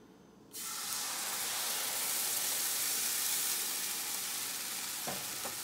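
A blended milk, flour and butter sauce mixture poured into a hot pan, sizzling: the hiss starts suddenly about half a second in and carries on steadily. The pan is hot enough that the cook fears the milk curdled. A couple of light knocks near the end.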